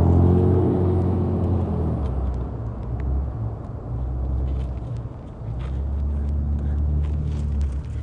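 A car engine running, its low hum bending in pitch at first, then steady. It weakens briefly about five seconds in and comes back.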